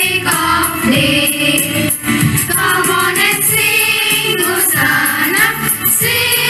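A group of school children singing a prayer song together in unison, over instrumental accompaniment with a steady ticking beat.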